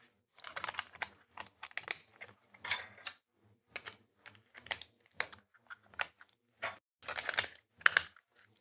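Hard plastic clicking and rattling as a red-and-white Raspberry Pi case is handled and its clip-in side panels are snapped into place: a string of short, irregular clicks, busier near the end.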